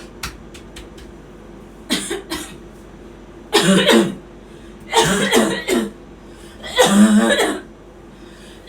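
Repeated coughing in four short, rough bouts about a second and a half apart, the cough of the 'kid cough' prank.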